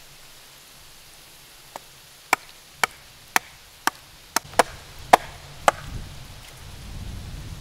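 Hatchet chopping into a thin green sapling pole: about nine sharp chops, roughly two a second, the first one faint. A low rumbling noise rises near the end.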